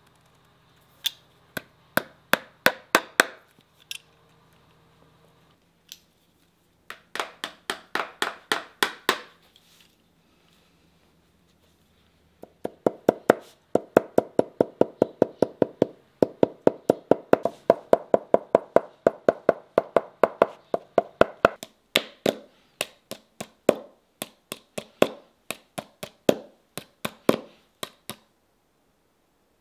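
Shoemaker's hammer tapping rapidly on a leather shoe upper on its last, driving lasting tacks around the toe and hammering the lasting margin down. The strikes are sharp and come several a second: two short bursts, then a long run that goes on with only brief breaks.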